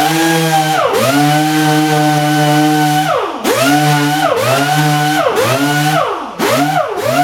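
Random orbital sander with 320-grit paper, on a dust-extraction hose, running against a filled plastic bumper to tidy up the edges of the filler. Its motor speed drops and picks up again about five times.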